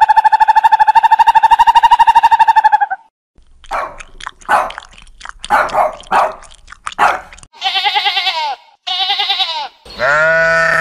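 A string of different animal calls: one long, steady pitched call lasting about three seconds, then a run of short sharp calls, then three longer calls that waver in pitch.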